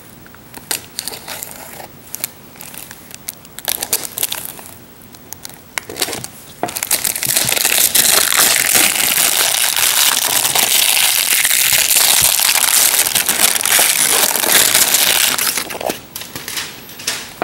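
Plastic shrink-wrap on a small cardboard box being slit with a folding knife, with light scratches and clicks. About seven seconds in, the film is pulled off and crumpled in loud, continuous crinkling that stops about a second and a half before the end.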